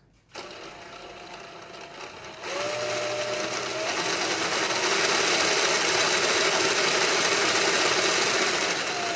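Cordless drill driving a Lego V12 engine model, its motor whining as the plastic gears, fan and pistons spin. It starts just after the beginning, gets louder and rises in pitch as the drill speeds up about two and a half seconds in, then runs steady.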